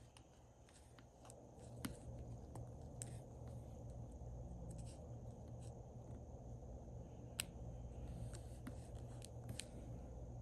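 Faint pen-and-paper sounds from writing in a paper planner: scattered light scratches and small ticks over a steady low hum.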